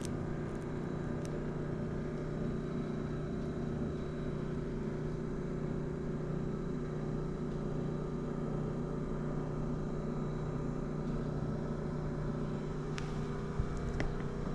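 Steady low machine hum with a few constant tones, unchanging throughout, and a couple of faint clicks near the end.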